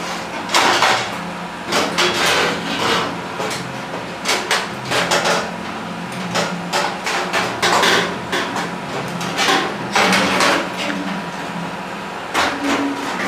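Hammer knocking during cabinet and worktop fitting: about twenty sharp blows in irregular clusters of two to four, with short pauses between them.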